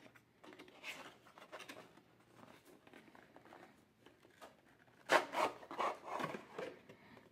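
Cardboard packaging rubbing and scraping as a white inner box is slid out of its printed sleeve, with a louder stretch of scraping about five seconds in.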